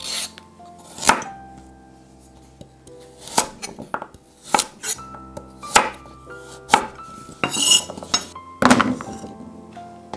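Knife cutting carrot on a wooden cutting board: a handful of sharp, separate knocks spread over several seconds, with a few brief scraping rustles, over soft background music.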